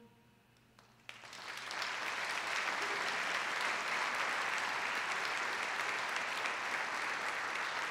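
The choir's last chord dies away, and about a second in, audience applause breaks out and swells to steady clapping.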